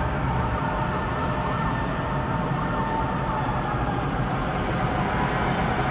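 Distant emergency siren wailing, rising and falling in pitch, over a steady hum of city traffic.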